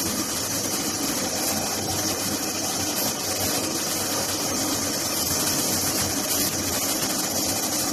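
LIMAC four-axis CNC duct-panel cutting machine running, a steady hiss with a low hum underneath.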